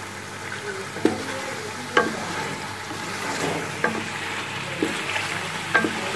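Wooden spoon stirring chicken curry in a metal cooking pot, knocking against the pot five times, roughly once a second, over the steady sizzle of the curry cooking.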